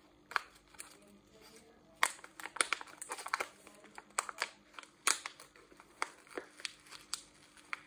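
Crinkling and irregular sharp clicks of a fish food container being handled and opened, over a faint steady hum.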